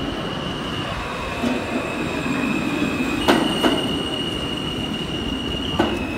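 R160 subway train rolling into the station, its wheels squealing in a steady high tone over the rumble. There are two sharp clacks about three seconds in and another near the end as wheels cross rail joints.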